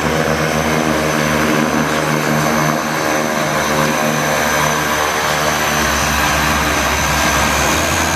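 Propeller aircraft engines running steadily, with a shift in the low hum about six seconds in.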